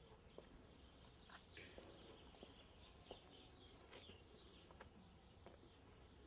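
Near silence: faint outdoor ambience with a few scattered faint ticks and chirps.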